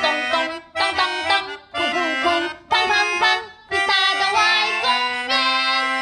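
Upbeat children's theme song: a voice sings short lyric lines over bright instrumental backing, in phrases of about a second with brief breaks, ending on a long held note.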